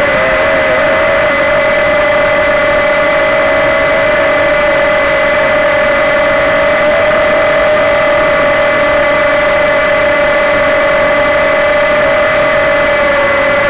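Walkera QR Ladybird V2 micro quadcopter's four brushed motors and propellers running in flight with a steady high whine, heard up close from a keychain camera mounted on the craft. The pitch wavers slightly near the start, then holds steady.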